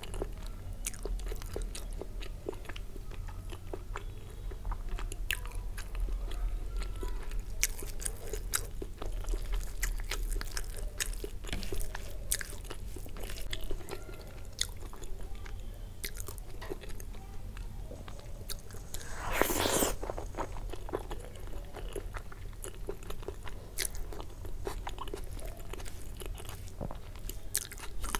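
Close-miked mouth sounds of chewing and biting paratha and biryani, with many small crisp clicks and crunches. One louder, longer noisy sound comes a little after two-thirds of the way through.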